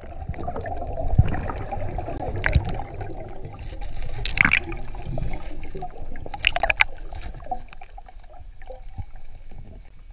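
River water heard underwater: a muffled, continuous gurgling rush, broken by a few brief sharper bursts.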